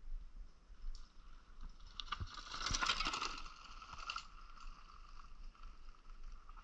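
Mountain bike riding along a stony dirt trail: clicking and rattling of the bike and its tyres over the stones, swelling to its loudest around three seconds in and fading by about four seconds.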